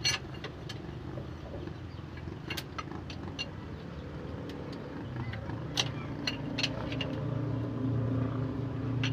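A vehicle engine running steadily with a low hum that grows louder about five seconds in, with sharp metallic clinks of tools on and off over it.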